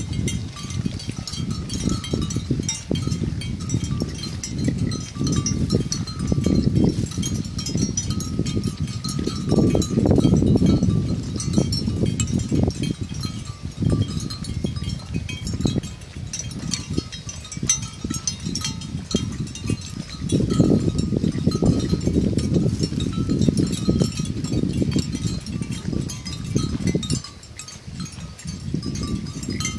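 Water buffalo grazing close by: a dense, uneven run of low crunching and tearing as they crop rice stubble, louder in stretches, with a faint thin tone coming and going above it.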